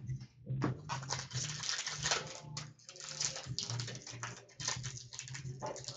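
Hockey card packs being opened and the cards handled: irregular rustling and crinkling of wrappers and cards, over a steady low hum.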